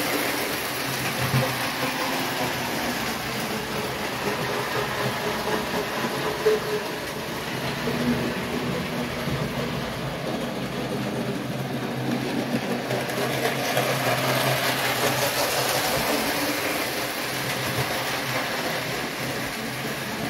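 Lionel 238E Pennsylvania Railroad Torpedo toy locomotive from 1937 running with its freight cars on three-rail O-gauge track: the steady whir of its electric motor and the rumble of wheels on the rails. The sound swells and fades as the train circles the layout, loudest near the start and again a little past the middle.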